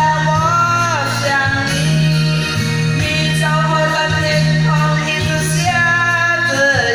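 A woman singing through a handheld microphone over a recorded backing track, holding long notes with slides in pitch between them.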